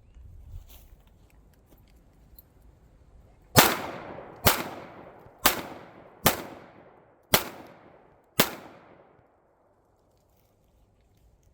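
Springfield Armory 1911A1 pistol fired six times at a steady pace of about one shot a second, starting a few seconds in, each shot followed by a fading echo.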